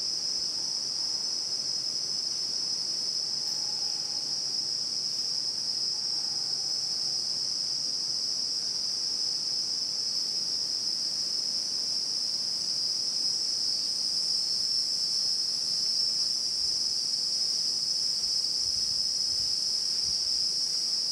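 Insects buzzing in one steady, high-pitched drone that never breaks, growing slightly louder in the second half.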